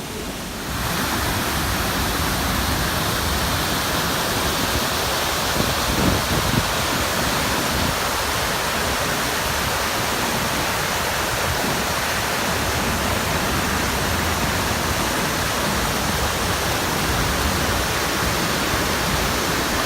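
Waterfall rushing: a steady, even sound of falling water that grows louder about a second in.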